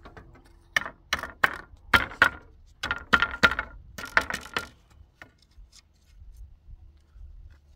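Sharp clinks and knocks of small hard objects handled in quick succession, about fifteen strikes between about one and five seconds in.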